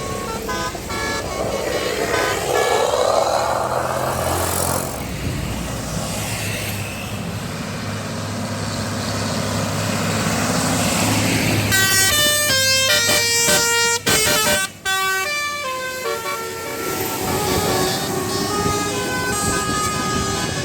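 A bus's telolet horn, a multi-tone musical air horn, plays a quick tune of stepped notes over the running engine of a passing bus. A vehicle's rush builds in the first few seconds, and the horn tune is loudest and densest from about twelve seconds in, cutting off abruptly twice.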